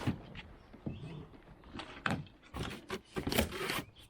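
Scattered knocks and clicks, then a longer stretch of scraping and rustling about two and a half seconds in, as boxed sawmill parts are handled and shifted.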